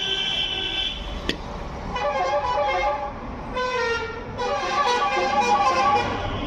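Vehicle horns honking: a steady honk of about a second at the start, a sharp click, then several seconds of further horn sounds that waver in pitch.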